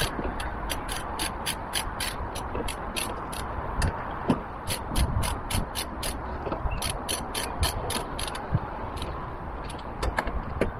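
Half-inch-drive socket ratchet clicking as it is worked on a bolt, a quick run of sharp clicks at about four or five a second that pauses briefly about four seconds in and thins out near the end, with a few dull knocks of handling.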